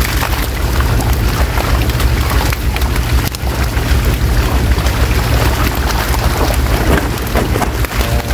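Many fish thrashing and splashing in shallow water inside a seine net as they are grabbed by hand and thrown into baskets, a dense continuous splashing and spattering. A steady low rumble runs underneath.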